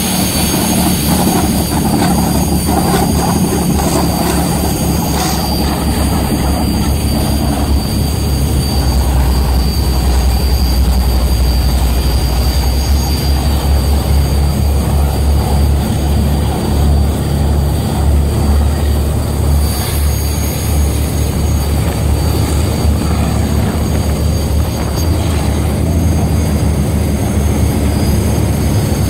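Unsilenced engines of 1940s–50s motor torpedo boats running at high speed: a loud, steady low drone mixed with wind and rushing water and spray along the hull. The low drone grows louder about nine seconds in.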